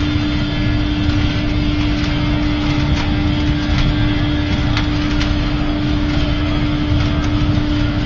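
5000 kW biomass sawdust burner firing at full flame: a steady roar with a constant hum running under it and occasional sharp crackles.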